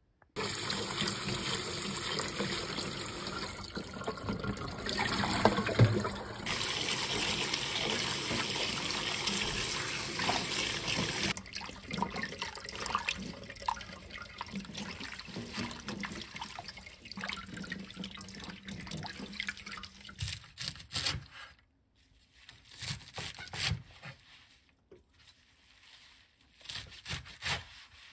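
Tap water running steadily into a stainless steel sink for the first ten seconds or so. It gives way to quieter, uneven splashing and rustling as handfuls of chamnamul (Korean wild parsley) are swished and rinsed in the water. A few short, separate sounds come near the end.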